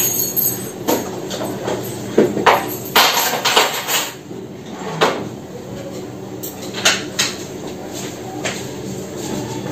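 Household objects being picked up and set down on a wooden shelf cabinet during dusting: a series of irregular knocks and clatters, busiest a couple of seconds in.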